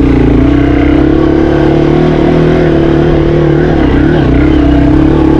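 Yamaha TW200's single-cylinder four-stroke engine running steadily under light throttle while riding off-road, its pitch holding fairly level with small rises and dips.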